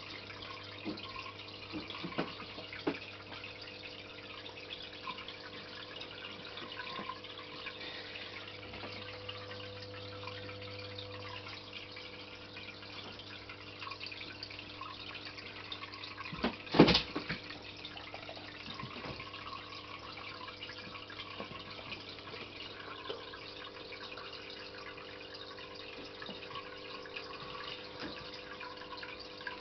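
Aquarium filter running: a steady trickle of water with a low hum. A few small clicks about two to three seconds in, and one sharp knock a little past halfway.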